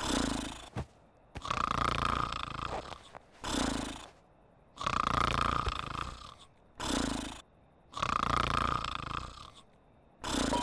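Cartoon sheep snoring in a steady cycle: a long snore on the in-breath, then a short, lower snort out, repeating about every three seconds.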